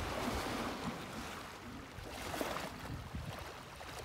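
Water splashing and sloshing as elephants wade and roll in a waterhole, with wind buffeting the microphone.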